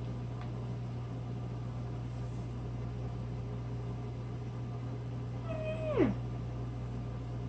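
A domestic cat meows once, about five and a half seconds in: a short call that holds its pitch briefly and then drops sharply.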